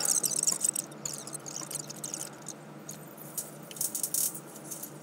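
Irregular light rattling and scratchy clicks as exhaust heat wrap is wound around a steel exhaust pipe and the pipe is shifted by hand, with a few louder clicks near the end.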